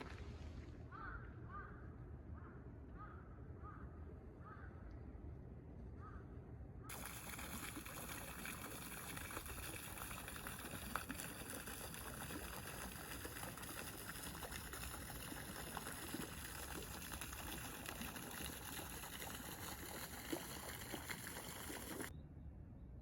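Short bird calls repeating about twice a second. About seven seconds in, water suddenly starts running and splashing steadily, and it stops abruptly near the end.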